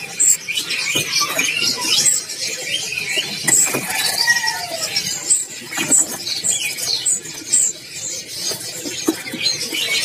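Many small caged songbirds chirping at once: a dense, overlapping chatter of short, high squeaky calls.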